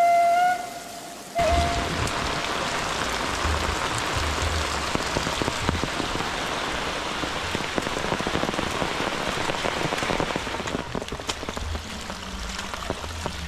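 Rain falling steadily, an even hiss that cuts in abruptly about a second in, after a brief flute-like tone stops. The hiss thins a little near the end.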